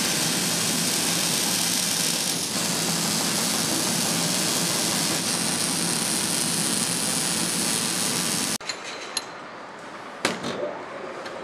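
Robotic arc welding of a motorcycle frame: a loud, steady sizzling hiss from the welding torches. It cuts off suddenly about three-quarters of the way in, leaving quieter machine noise with a few sharp clicks and one louder knock.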